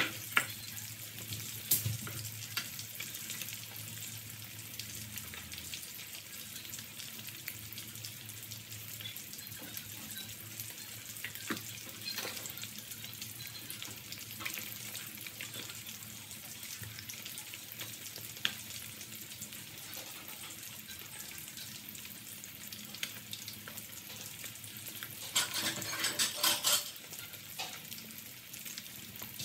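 Fish deep-frying in a wok of hot oil: steady sizzling with scattered sharp pops, and a louder burst of crackling near the end.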